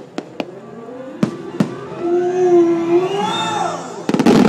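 Fireworks: a few sharp pops in the first second and a half, then a loud shell burst about four seconds in, followed by dense crackling as a white glitter shell breaks open. A held, wavering tone sounds in the middle.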